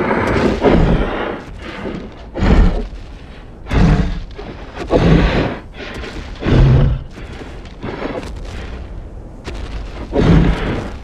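Film sound effects for a tarbosaurus: a run of loud roars mixed with heavy booming thuds, about six big bursts in all.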